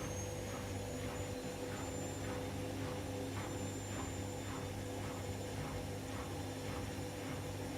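Beko washing machine running: a steady motor hum with several held tones and a faint pulse repeating about twice a second.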